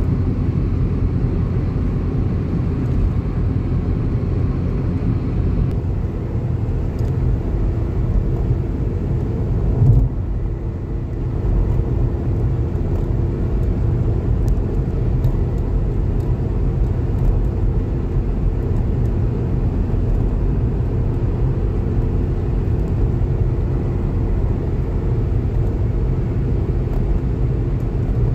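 Steady low road and engine rumble of a moving car, heard inside the cabin, with one brief thump about ten seconds in.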